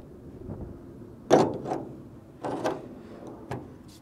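Clicks and clunks of a light aircraft's wing fuel filler cap being handled and closed: one sharp clack about a second in, then a few lighter knocks.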